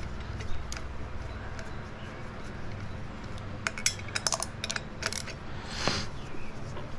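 Scattered metallic clicks and clinks of small metal parts and hand tools being handled, with a quick cluster of clinks in the middle and a short scrape near the end.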